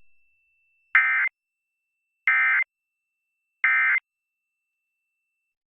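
Emergency Alert System End of Message code: three short bursts of shrill digital data tones, each about a third of a second long, with about a second between them. They mark the end of the alert.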